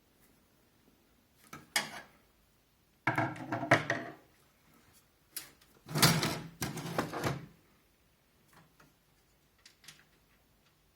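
Handling noises of a case fan being fitted into a computer case: knocks, scrapes and rattles in a few short bursts, the loudest a little past halfway, then a few light ticks.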